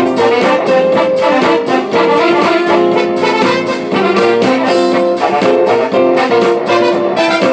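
Music with brass-like voices playing a melody over a steady drum beat.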